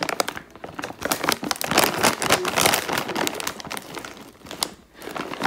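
Crinkly plastic snack bag of Oishi Potato Fries crackling and crinkling as hands grip and turn it, with a brief lull about four and a half seconds in.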